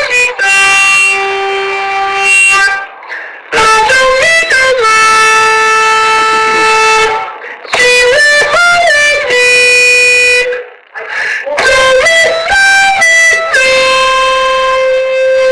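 A buzzy, pitched tone playing a tune: held notes that step up and down between pitches, with short breaks between phrases, and a wavering rise and fall at the very end.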